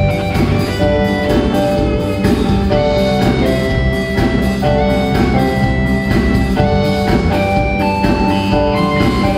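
Music with a steady drum beat under a melody of held notes that step up and down.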